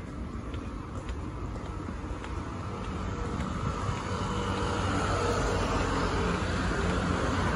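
Road traffic running on a city street, with a vehicle approaching and growing louder over the second half.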